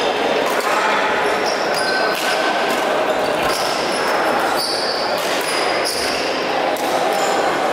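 Badminton play in a sports hall: sharp racket strikes on a shuttlecock and short high squeaks of shoes on the court floor, over a steady din of voices echoing in the hall.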